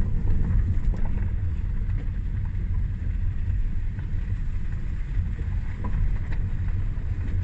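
Big-bore single-cylinder Husqvarna dirt bike running as it is ridden, a steady low rumble mixed with wind buffeting the microphone.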